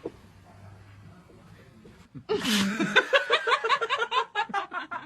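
A person bursts into hard, rapid laughter about two seconds in, a quick run of 'ha-ha' pulses after a breathy start.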